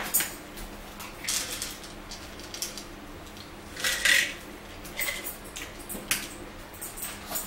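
Light clatter and rustling of a meal being handled at a table: plastic plates, paper fry cartons and wrappers. There is a louder rustle about four seconds in, over a faint steady hum.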